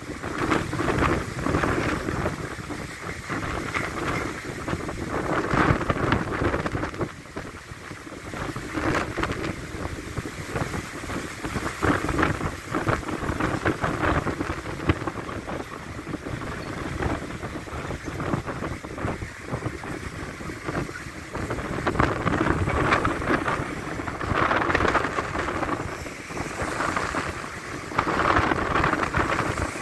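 Storm wind gusting hard and buffeting the microphone, with rain, the level surging and dropping every second or two.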